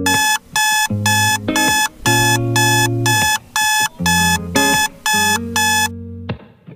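Alarm beeping in a steady run of about two high-pitched beeps a second, a dozen in all, stopping about six seconds in. Background music plays underneath.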